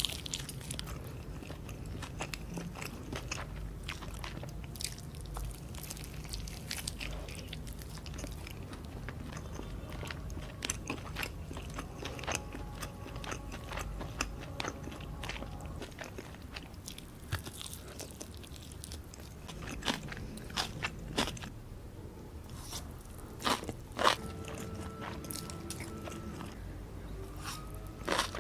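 Close-miked eating: a person biting and chewing food, a steady run of small sharp mouth clicks with a few louder bites about 20, 21 and 24 seconds in.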